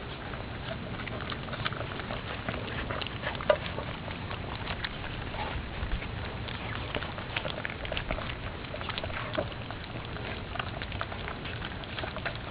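Four-week-old pitbull puppies moving about, a continual patter of small scratches and taps from their claws and paws, with one louder tap about three and a half seconds in.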